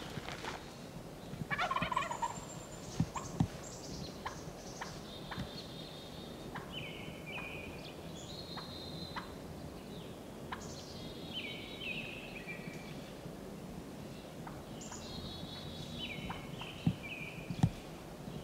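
A wild turkey gobbler gobbles once about two seconds in, a quick rattling call: another tom answering nearby. A songbird repeats a short high song phrase every few seconds, with scattered ticks and a couple of soft thumps.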